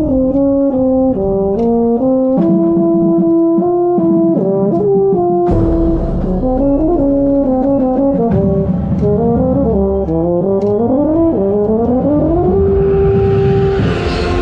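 Euphonium playing a melodic solo line close to the microphone, with band accompaniment underneath. Near the end the line climbs in a quick rising run to a held note.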